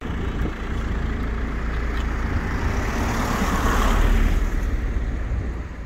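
Road traffic: a steady low rumble, with a vehicle passing by that swells to its loudest about four seconds in and then fades.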